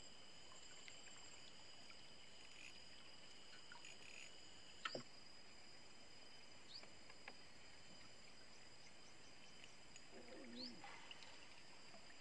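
Faint steady insect chorus, thin high tones held without a break. A brief sharp click with a quick falling glide about five seconds in, and a few short chirps later on.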